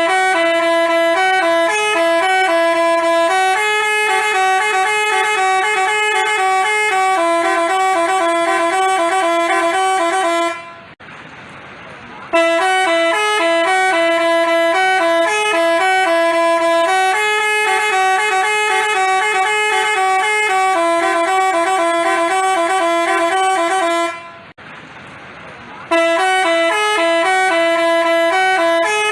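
Telolet basuri musical bus horn playing a tune in loud, steady horn notes that step from pitch to pitch. It breaks off twice for under two seconds, then starts the tune again.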